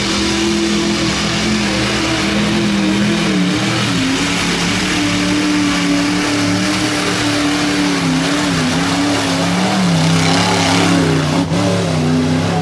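Mud truck's engine running hard at high revs as it churns through a mud bog pit, its pitch wavering up and down.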